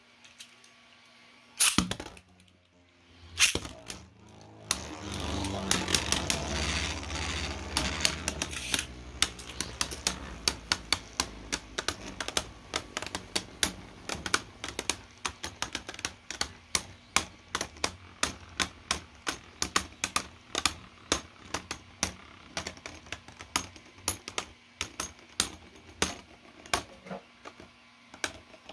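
Two Beyblade Burst Pro Series tops, Overdrive and Wizard Fafnir, battling in a plastic stadium: after a sharp click about two seconds in, they land and spin with a whirring scrape, then clash again and again with sharp plastic clicks, about three a second.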